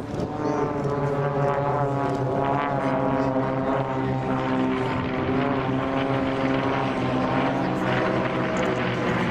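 Piston engines of a formation of aerobatic propeller planes flying overhead, a steady drone whose pitch shifts slightly as they pass.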